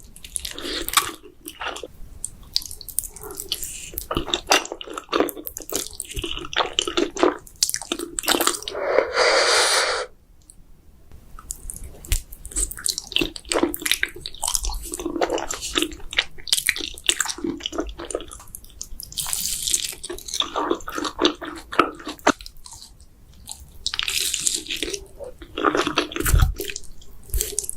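Close-miked eating of spicy buldak noodles and mozzarella sticks: wet chewing, mouth smacks and clicks throughout, with one long slurp about eight seconds in.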